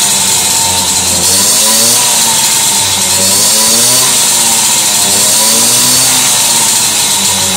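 Two-stroke moped engine running loud, its speed wavering up and down about once a second rather than holding steady. The owner says the carburettor is badly worn and needs replacing.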